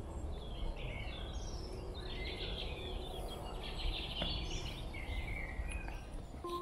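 Birds singing: several overlapping chirping and warbling phrases, over a steady low rumble.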